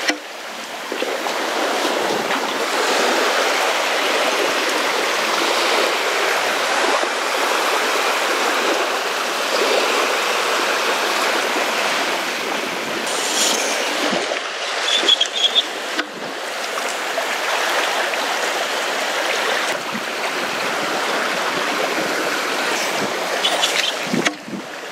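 Small waves washing over a shallow sandy shore, a steady rush and slosh of water.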